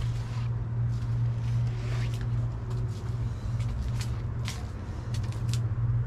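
A steady low mechanical hum, with scattered light clicks and rustles over it.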